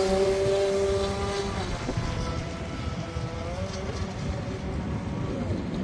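Brushless electric motor of a 6S RC speedboat whining steadily at high speed, loud at first and then fainter as the boat runs away, with a brief dip in pitch past the middle. Wind rumbles on the microphone throughout.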